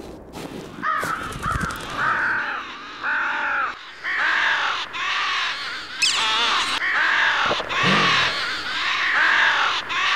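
Several crows cawing over and over, the harsh calls overlapping, starting about a second in. A brief wavering higher cry stands out about six seconds in.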